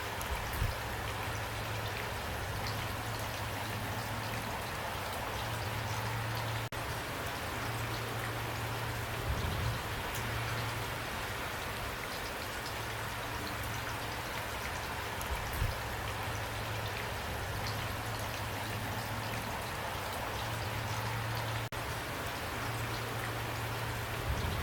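Steady rain falling, an even hiss with a low rumble underneath and a few louder thumps from heavier drops. The sound cuts out for an instant twice.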